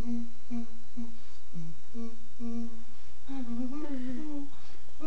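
A person humming a tune of short repeated notes, about two a second, with a longer wavering phrase a little past the middle.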